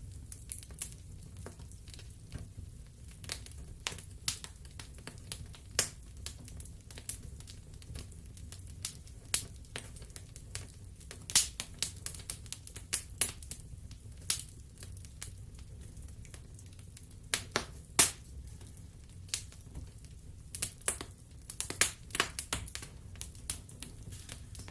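Wood fire in a fireplace crackling: irregular sharp pops and snaps, a few much louder than the rest, over a steady low rumble. The snaps come thicker toward the end.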